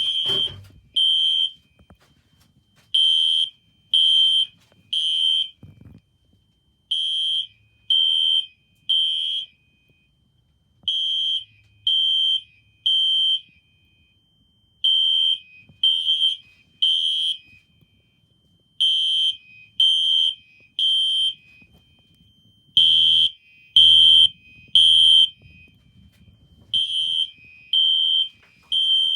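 Fire alarm horn sounding the temporal-3 evacuation pattern: three high beeps about a second apart, then a pause, repeating about every four seconds. One group of three, a little past two-thirds of the way through, is louder and fuller than the rest.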